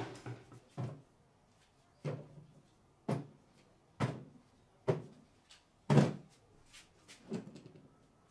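Battery cordless drills set down one at a time on a folding table top: a series of about eight knocks, roughly one a second, the loudest about six seconds in.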